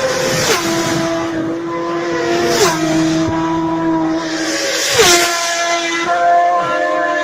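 Racing motorcycles passing at high speed close by, the engine note of each dropping sharply in pitch as it goes past, three times in a row.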